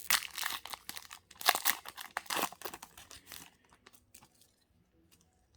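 A trading card pack wrapper being torn open and crinkled in a run of sharp crackling rips that fade out after about three and a half seconds.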